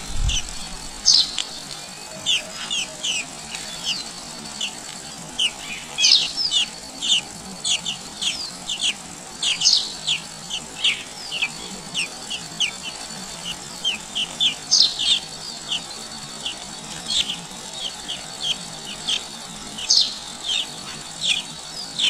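Nestling songbirds begging in the nest while an adult feeds them: many short, sharp, high chirps that drop in pitch, coming irregularly and sometimes in quick runs.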